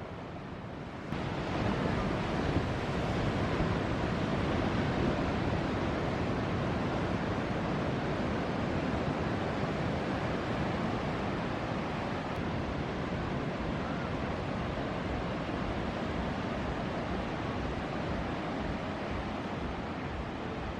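Ocean surf breaking, with wind buffeting the microphone: a steady rush of noise that jumps abruptly louder about a second in.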